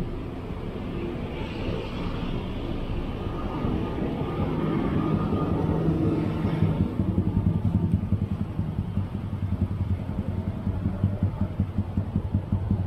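City road traffic heard from a bicycle among stopped motorcycles and cars: engines idling and running close by, with a low rumble throughout. From about halfway on there is a fast, uneven low pulsing.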